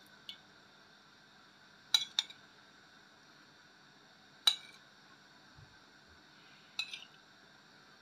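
A metal spoon clinking against glass dishes four times, about every two seconds, as jelly cubes are scooped and set in place.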